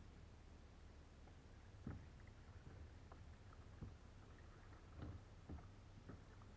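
Faint kayak paddling: soft paddle strokes and drips in calm water, heard as a few light splashes and knocks over a low steady rumble.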